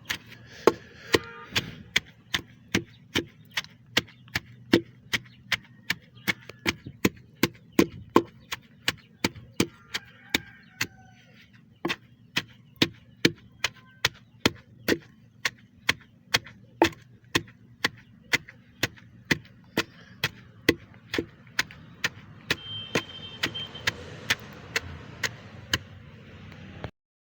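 Pestle pounding chopped, washed neem and pawpaw leaves in a mortar: steady strokes about two a second, with a brief pause about halfway.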